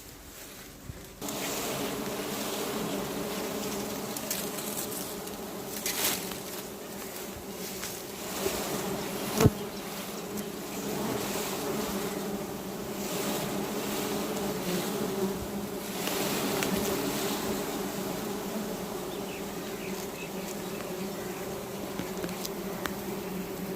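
Swarm of wild honeybees buzzing steadily around their comb as it is harvested by hand. The buzz starts about a second in, with a few sharp clicks, the loudest about nine seconds in.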